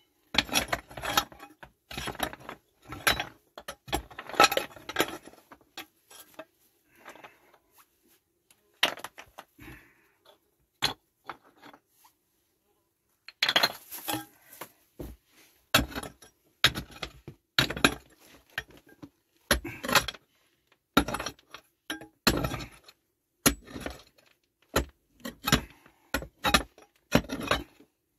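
A pick striking and prying at stone fill, with loose stones knocking and clinking together. There is a run of blows, a sparse lull of a few seconds around the middle, then a steady series of strikes again.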